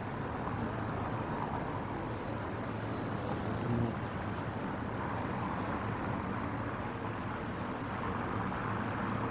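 City street ambience: a steady wash of traffic noise with a continuous low engine hum.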